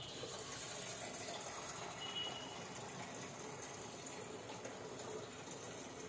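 Top-loading washing machine filling its tub at the start of a cycle: a steady rush of water pouring in through the inlet.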